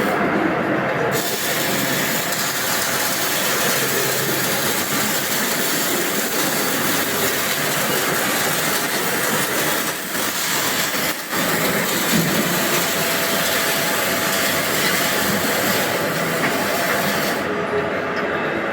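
Semi-automatic MIG welding arc crackling and hissing steadily, with two brief breaks about ten and eleven seconds in.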